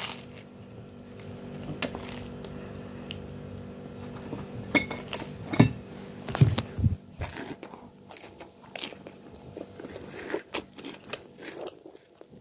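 Close-up crunching bites and chewing of a toasted cheese-and-bacon sandwich, irregular crunches with the loudest about five to seven seconds in, over a faint steady hum.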